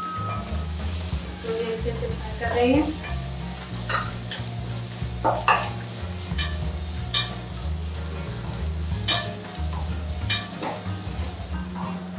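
A wooden spatula stirring an onion, ginger and green-chilli masala frying in oil in a pan. It gives a steady sizzle, broken by a series of sharp scrapes and clacks of the spatula against the pan.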